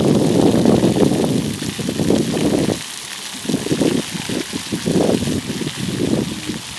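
Splash pad water jets spraying and splashing onto wet concrete: a rushing water noise that drops away about three seconds in, then comes back in uneven surges.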